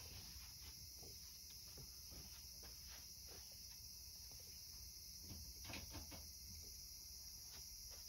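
Faint, steady high-pitched chorus of cicadas on a summer evening, with a few soft clicks and knocks a little over halfway through.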